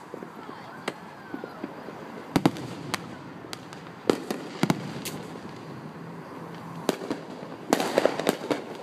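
Aerial fireworks shells bursting overhead: sharp bangs at irregular intervals of a second or so, with a quick run of pops and crackle near the end.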